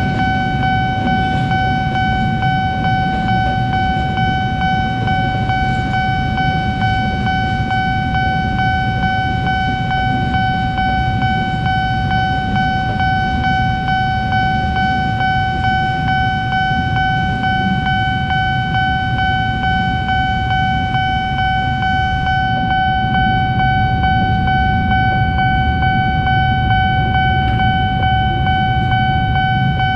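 Railway level-crossing warning alarm sounding one unbroken steady tone, over the low rumble of motorcycle engines idling at the lowered barriers.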